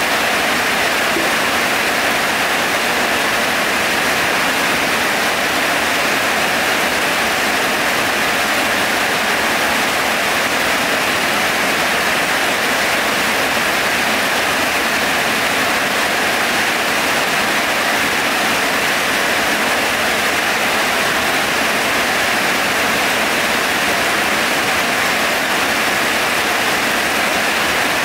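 Heavy rain falling: a dense, steady hiss that holds at the same level throughout.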